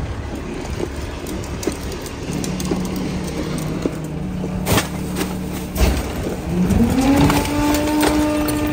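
Pak Mor rear-loader garbage truck running a packer cycle: the hydraulic packer blade sweeps down through the hopper over a low steady hum. About six and a half seconds in, the engine revs up and holds at the higher speed to drive the hydraulics. Two sharp cracks come just before the rev-up, as trash is crushed.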